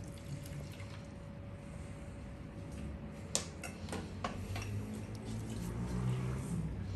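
Low steady room hum with a faint steady tone in the first half, and a handful of sharp small clicks about halfway through.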